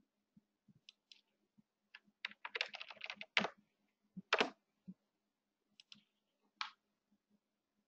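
Typing on a computer keyboard: scattered keystrokes, then a quick run of them about two seconds in, with a few louder strokes after it.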